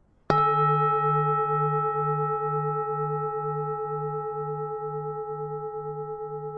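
Vietnamese bronze temple bell struck once about a third of a second in, then ringing on and slowly fading. Its ring holds several steady tones over a deep hum that throbs two to three times a second.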